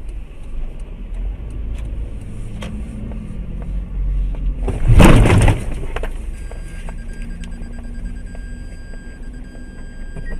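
Car recorded from inside by a dash cam, with a steady low road and engine rumble. About five seconds in, a sudden loud bang lasting about a second, a collision impact.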